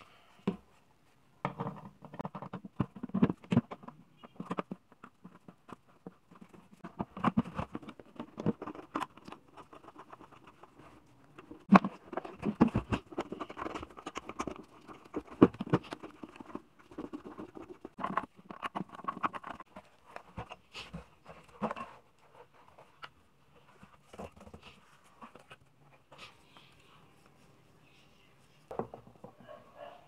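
Irregular knocks, clicks and scrapes as a small electric motor and its bolts are handled and set onto the base of an upturned plastic bucket.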